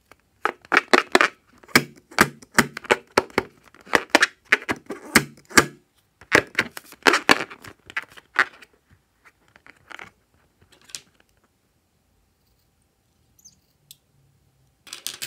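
A liquid-filled rubber balloon squeaking and crackling as fingers squeeze and turn it, in quick runs of short squeaks for the first eight seconds or so, then only a few faint ticks. A short cluster of clicks near the end, as scissors cut the balloon's neck.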